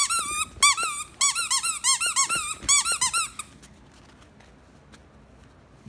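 Silver Weimaraner puppy squealing: fast runs of high-pitched, rising-and-falling squeals in three bursts that stop about three and a half seconds in.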